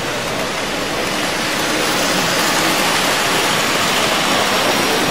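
Steady, even rushing noise of a busy exhibition hall, with a Tri-ang OO gauge model train running along the track close by.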